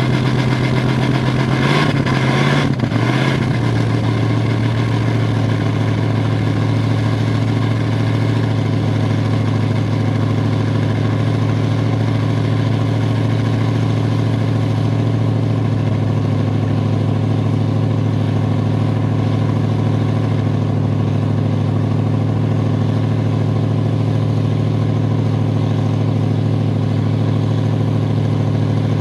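Original 1971 Pontiac Bonneville's 455 V8, with a two-barrel carburettor, points ignition and single exhaust, idling steadily at the tailpipe while it warms up after a cold start without a choke. Its note wavers briefly about two seconds in, then settles.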